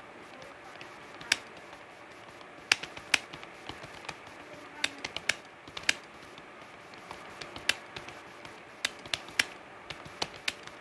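Typing on a computer keyboard: irregular, sharp keystroke clicks, a few a second and uneven in loudness.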